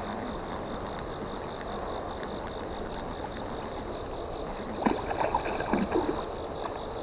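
A catfish striking a topwater lure, a modified Heddon Big Bud, at the water's surface: a burst of irregular splashing about five seconds in that lasts a second or so, over a steady background hiss.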